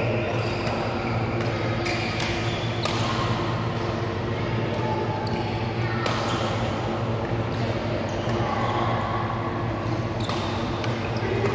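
Badminton rackets striking a shuttlecock during rallies: a string of sharp, echoing hits at irregular intervals, about one a second, over a hall's background of voices and a steady low hum.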